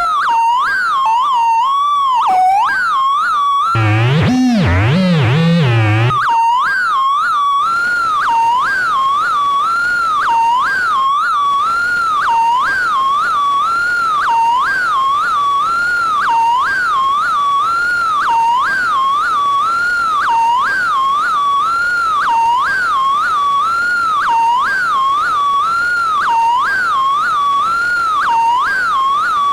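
Arturia Buchla Easel V synthesizer playing a whistling, theremin-like tone that swoops up and down in a fast repeating pattern, about one and a half swoops a second. During the first six seconds a low line of stepping notes plays under it, then drops out.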